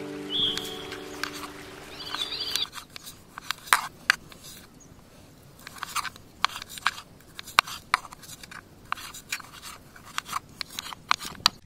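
Two kitchen knives chopping tomatoes on a wooden cutting board: irregular sharp taps of the blades striking the board. A steady musical tone underneath stops about two and a half seconds in.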